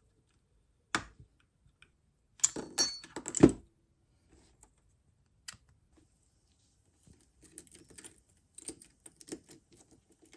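Small metal watch parts and hand tools clicking and clinking as a watch is taken apart: a sharp click, then a cluster of clinks with a brief high metallic ring, then a run of light ticks.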